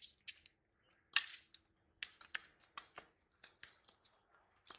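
Tennis rally on an outdoor hard court: sharp pops of racket strings hitting the ball and the ball bouncing, the loudest about a second in, with fainter ticks in between.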